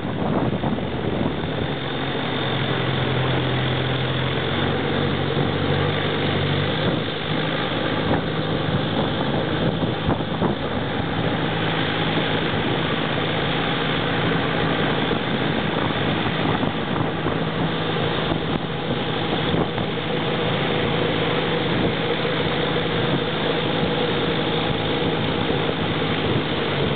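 Longtail boat engine running steadily under way: a constant low drone with a hiss of wind and water over it.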